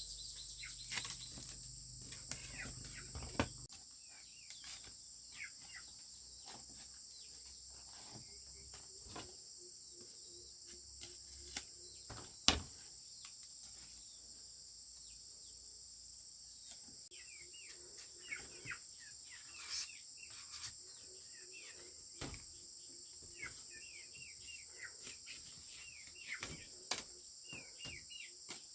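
Steady high insect chorus, like crickets, with short bird chirps and scattered sharp knocks, the loudest about twelve seconds in.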